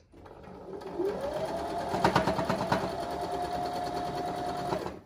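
Electric domestic sewing machine stitching a seam through a patchwork block. Its motor whine rises in pitch about a second in as it speeds up, then holds steady with a rapid ticking of the needle, and stops just before the end.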